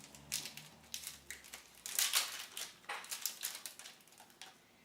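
Foil wrapper of a Pokémon TCG booster pack crinkling and crackling as it is torn open, in a cluster of irregular crackles that is loudest about halfway through.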